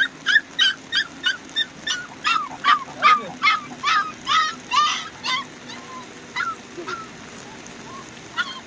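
An animal calling close by in quick, high-pitched, repeated yelps, about three a second; the calls thin out after about five seconds and start again in a fast run near the end.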